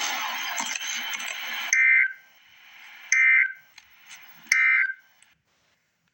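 Emergency Alert System end-of-message signal: three short bursts of warbling digital data tones, about a second and a half apart, closing the tornado watch alert. Before them a burst of hiss-like static runs for the first second and a half or so.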